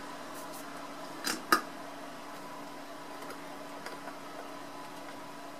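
Two quick light clicks of small hand tools being picked up and handled at a soldering bench, about a second and a half in, over a steady background hum.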